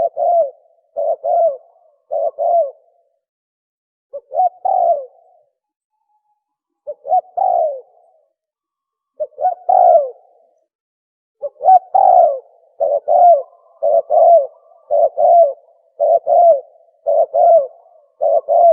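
Spotted dove cooing in short repeated phrases, each a quick low coo. The phrases come with pauses at first, then in a fast run of about one a second from about halfway in.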